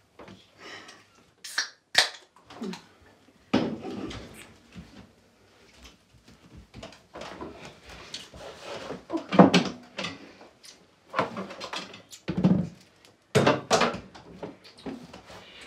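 Two people kissing: lip smacks, breathing and short soft moans, coming in uneven bursts. A couple of sharp clicks about two seconds in.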